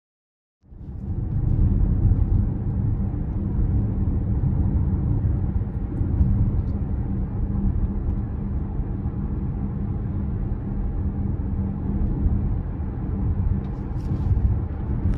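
Steady low rumble of a VW ID. Buzz Cargo electric van on the move, its tyre and wind noise starting suddenly just under a second in.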